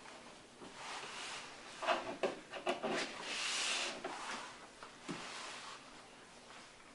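Sheets of paper rustling and being shuffled on a table, with a few light knocks and clicks about two seconds in and the loudest rustle for about a second just after.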